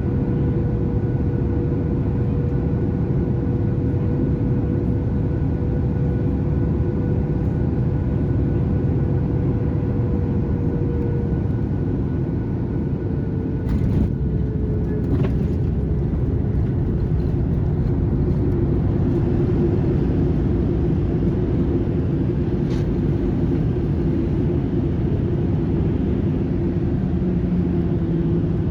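Cabin noise of a Boeing 737-800 landing: a steady roar of its CFM56 engines and rushing air, with a steady tone that drops slightly in pitch about halfway through. Two short knocks come just past the middle, and a third a little later.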